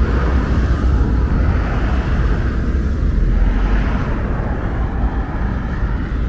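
Road traffic passing along a seaside avenue: steady loud noise with a heavy low rumble, swelling slightly in the middle.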